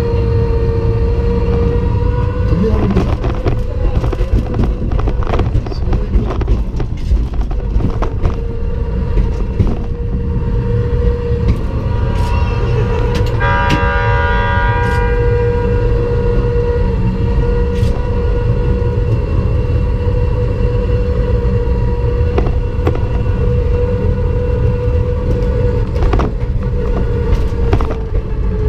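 Ride-on miniature Yufuin no Mori train running along its track: a steady motor whine over the rumble of the wheels, with occasional clicks. About halfway through, a horn sounds for a second and a half.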